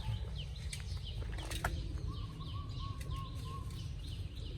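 Small birds chirping: many short, falling chirps in quick succession over a steady low rumble, with a single sharp click about one and a half seconds in.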